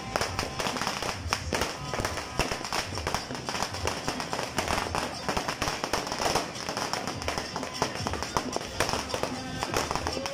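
Fireworks and firecrackers going off continuously, a dense, irregular crackle of sharp bangs, with music playing underneath.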